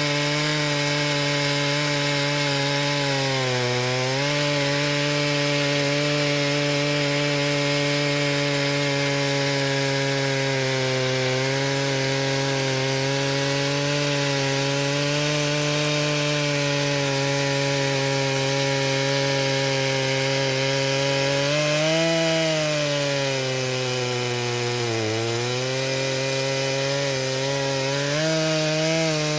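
Stihl MS 881 two-stroke chainsaw on an Alaskan mill running at full throttle, ripping lengthwise through a log. Its engine pitch sags briefly a few times under load and then recovers.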